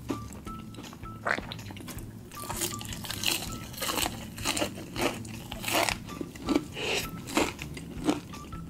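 Close-miked biting and chewing of crispy fried chicken. The coating gives loud crunches, the first about a second in, then roughly one every half second.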